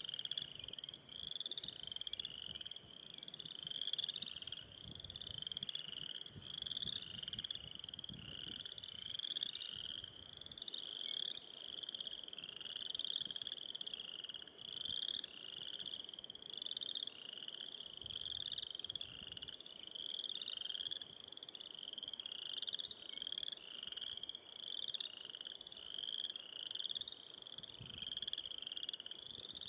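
A chorus of frogs calling: many short, high, trilled calls overlapping at about one a second, going on steadily.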